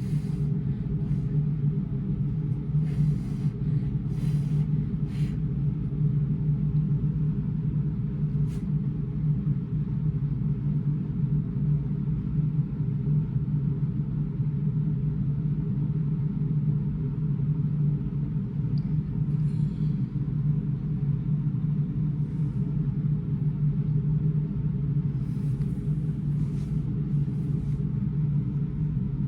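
A steady low mechanical hum with an unchanging droning pitch, like a motor or ventilation running, with a few faint brief rustles.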